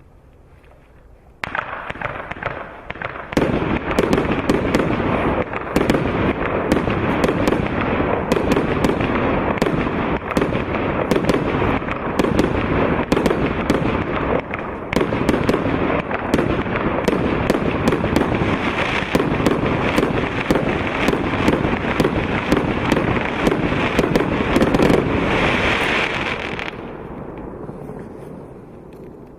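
Funke 'Red Glittering Willow' 49-shot firework battery firing. The shots start about a second and a half in and follow in a fast, dense string of launches and bursts over a continuous hiss. They build to a louder titanium finale, then fade out near the end.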